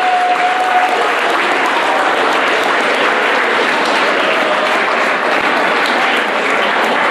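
Audience of schoolchildren applauding, a steady mass of handclaps. A last held musical note fades out about a second in.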